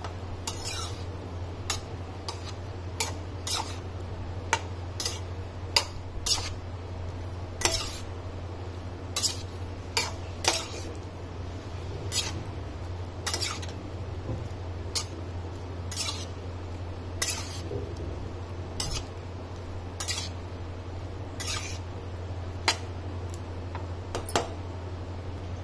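Spatula knocking and scraping against a metal kadhai as jackfruit pieces are stirred in oil. Sharp clinks come at an uneven pace of about one a second, over a steady low hum.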